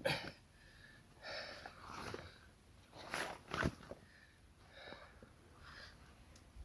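A person's breathing: a series of short puffs and sniffs close to the microphone.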